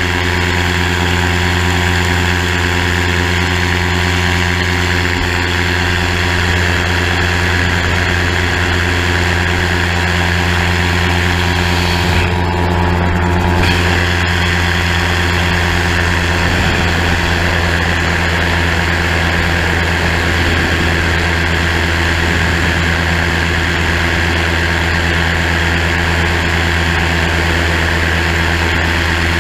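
Gyrocopter engine and propeller running steadily during the climb after takeoff, with wind hiss on the onboard microphone. The hiss briefly drops out about twelve seconds in.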